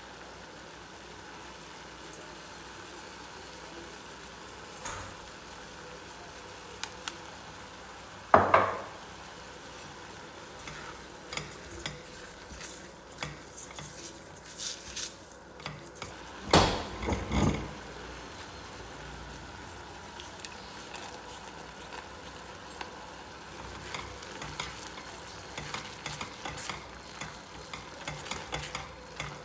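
A spatula stirring and scraping vermicelli in a stainless steel saucepan, with small clicks against the pan over a steady hiss. Two loud knocks stand out, one about eight seconds in and a longer one around the middle.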